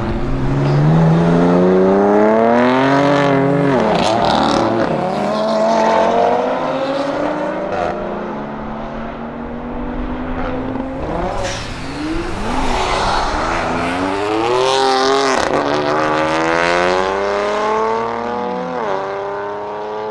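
Tuned BMW M3 F80's twin-turbo straight-six with a Milltek exhaust, accelerating hard through the gears. The pitch climbs steadily and drops back at each upshift, over several pulls.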